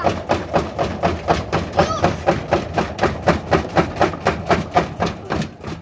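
Front-loading washing machine with its casing removed, running with a fast, regular knocking, about four knocks a second, that fades near the end. It is the fault of a washer that goes wrong at low drum speed.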